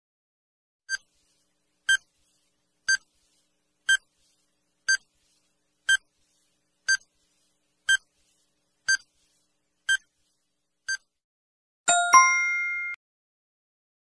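Countdown timer sound effect: a short beep once a second, eleven in all, then a louder chime of several tones about twelve seconds in that rings for about a second, signalling that time is up.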